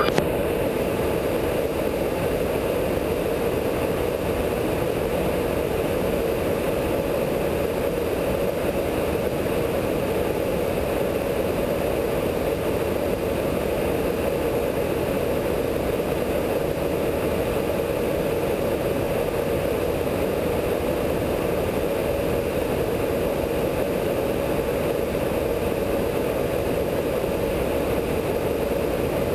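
Steady drone of a KC-135 tanker aircraft in flight, heard in the boom operator's pod: engine and airflow noise that holds unchanged throughout.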